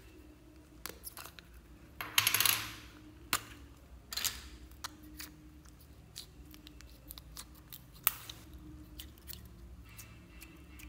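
Clear slime being squeezed and pressed into a bowl of small foam beads, with many small clicks and crackles from the beads. A louder, longer crunching burst comes about two seconds in, a smaller one about four seconds in, and a single sharp click about eight seconds in.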